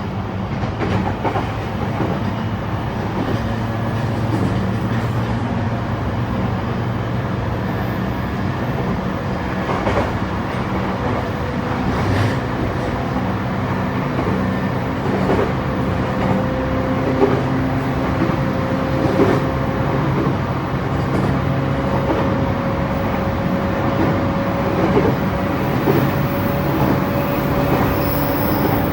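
Running noise of a JR East E235-1000 series electric train heard from inside the car. A traction motor whine slowly rises in pitch over the second half, and the wheels clack now and then over rail joints.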